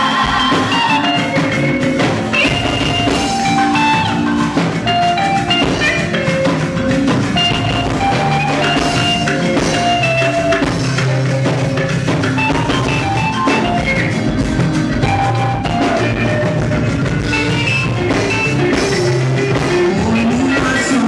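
Music with drum kit, guitar and some singing, at a steady loud level.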